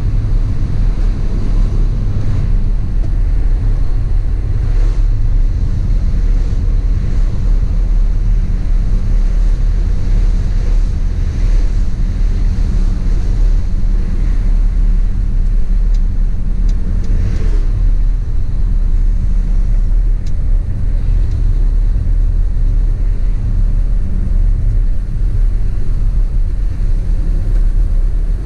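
A vehicle driving: a steady, loud low rumble of engine and road noise, with wind noise over it.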